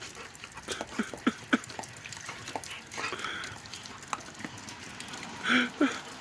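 Puppy barking twice in quick succession near the end, short and sharp, after a run of scattered light clicks and taps.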